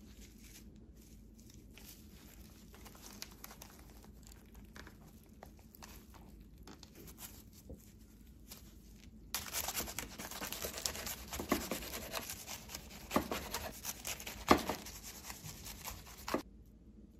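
Faint rustling of leaves and seaweed as a gimbap is assembled and rolled. About nine seconds in, a knife starts slicing through the nori-wrapped roll with a loud, crisp crackling, and the blade knocks sharply on the wooden cutting board a few times before the sound cuts off near the end.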